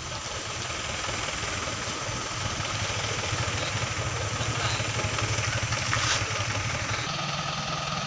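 Engines of a minivan and a motorcycle pulling slowly past on a rough dirt climb, growing louder as they pass close, loudest about six seconds in. About seven seconds in the sound changes to a steadier engine hum, a stationary Isuzu diesel truck idling.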